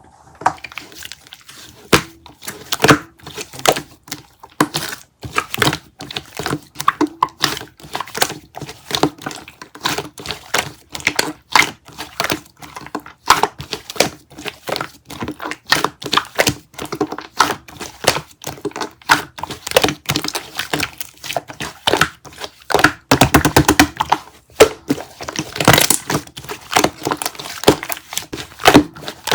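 Slime called soda gum being squeezed, poked and pulled, making dense sticky crackles, clicks and small pops. Around two-thirds of the way through there is a brief run of rapid, even clicking, followed by a louder crackly stretch.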